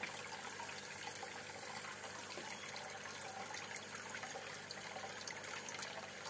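Aquarium aeration: air bubbles rising through the tank water and breaking at the surface, a steady bubbling and trickling with many small pops.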